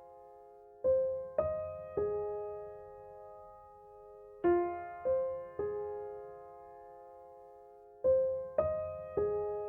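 Background music: slow piano notes struck in three-note phrases, each note ringing out and fading, the phrase repeating about every three and a half seconds.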